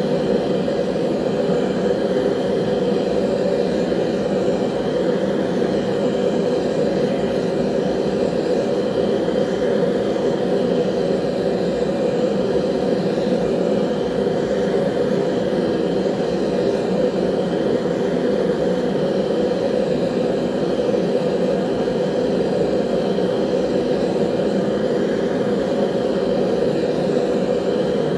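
Forge running with a steady, even rushing noise that does not change while the blades heat for annealing.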